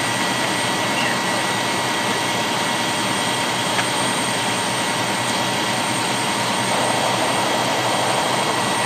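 Fire engine running steadily at close range, a continuous even engine noise that does not change.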